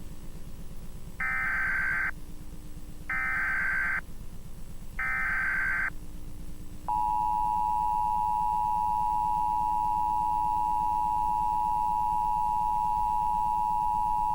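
Emergency Alert System SAME header: three rasping data bursts of about a second each. About 7 s in, the steady EAS two-tone attention signal starts and holds.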